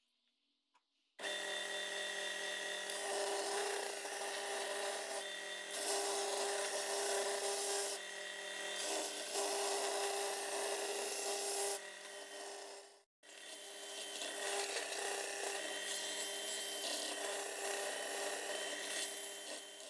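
Bench belt sander running with a steady motor hum while an English elm seat board is pressed against the moving belt, the abrasive rasping on the wood. It starts about a second in and drops out briefly about two-thirds of the way through.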